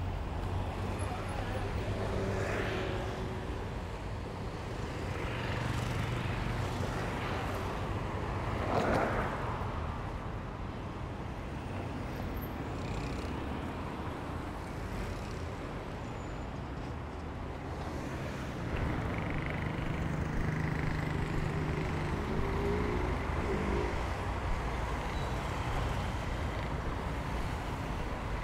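Road traffic on a wide city avenue: cars passing in a continuous rumble. The traffic is loudest about nine seconds in, and a low engine hum sets in at about nineteen seconds.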